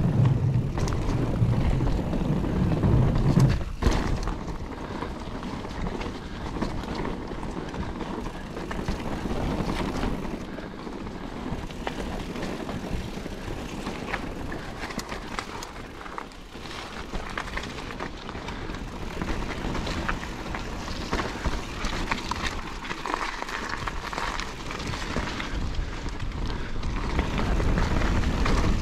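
Calibre Triple B mountain bike ridden along a trail, with the rolling noise of the tyres and scattered clicks and rattles from the bike. For about the first four seconds the tyres rumble loudly over a wooden boardwalk, then the noise drops to a steadier rolling over dirt singletrack.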